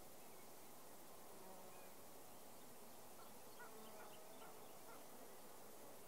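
Near silence: a faint bumblebee buzz under a steady outdoor hiss, with a few faint high chirps around the middle.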